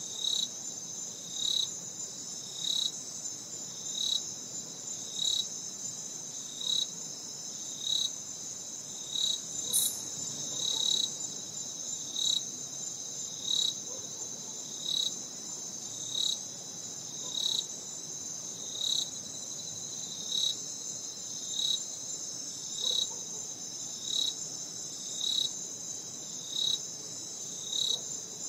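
Chorus of night-calling insects: a steady high trill with a louder chirp that repeats evenly about every 1.3 seconds.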